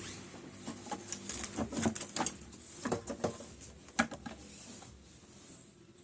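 Scattered light clicks and taps of a screwdriver and metal amplifier chassis parts being handled while the rear back-board screws are undone, about half a dozen sharp ticks in the first four seconds, then quieter.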